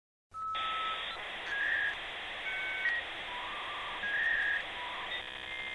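Outro jingle: a simple melody of single held high notes, each about half a second, over a steady hiss. A fuller, richer tone comes in near the end.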